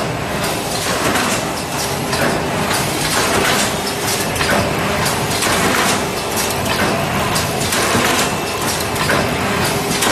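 Automatic cutting and sewing machine for PP woven sacks running: a steady mechanical clatter with short sharp rattles about once or twice a second, at an uneven rhythm.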